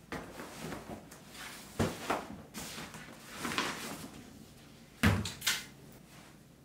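Cardboard blender box and shopping bag handled and set down on a kitchen counter: rustling with several knocks and thumps, the loudest a sharp thump about five seconds in.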